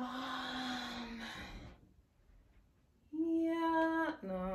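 A woman's voice holding long sung notes without words: one steady note for about a second, then after a short pause a longer, higher note that steps down to a lower one near the end.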